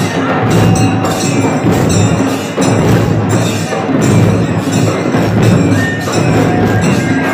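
Loud rhythmic percussion music: drum strokes and jingling metal percussion keep up a steady beat.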